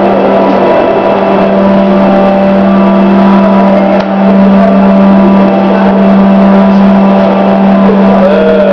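Workshop lifting platform for rail vehicles running: a loud, steady electric machine hum with a brief dip and click about four seconds in.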